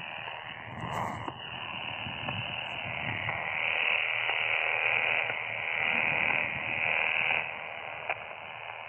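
Malahite SDR shortwave receiver playing 80 m band noise in single-sideband: a hiss cut off above about 3 kHz that swells and fades, with a faint steady whistle and a single click near the end.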